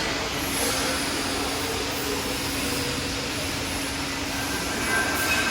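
Profile bending machine running: a steady mechanical noise with a low hum. Near the end a higher whine comes in.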